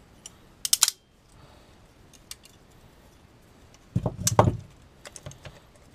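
Locking pliers clicking and clattering on a small metal oil pressure sensor housing as they are tightened and clamped. A quick pair of sharp clicks comes about a second in, and a louder clatter with a dull knock around four seconds in, followed by a few light ticks.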